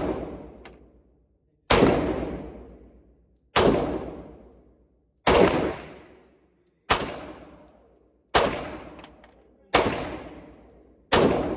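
SIG P229 pistol in .40 S&W fired slowly, one shot about every one and a half seconds: seven sharp shots, each followed by a long echoing decay.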